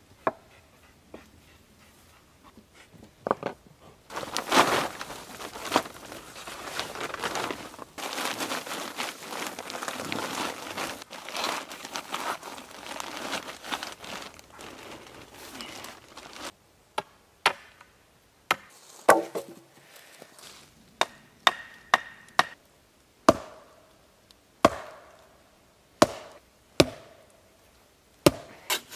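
Several seconds of rustling and handling noise, then a series of sharp wooden chops, a dozen or more spaced roughly a second apart: wood being chopped with a blade.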